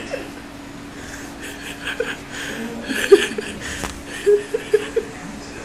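Pit bull puppy giving short, whiny yips and yowls from its crate, with four in quick succession about four seconds in, over a steady low hum.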